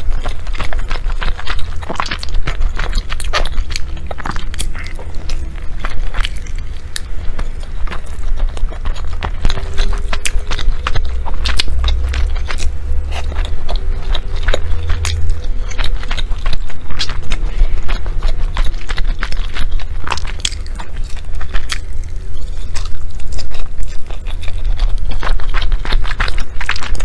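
Close-miked chewing of sticky glutinous rice dumpling: many irregular wet mouth clicks and smacks, with wooden chopsticks scraping and tapping in a ceramic dish and a steady low rumble underneath.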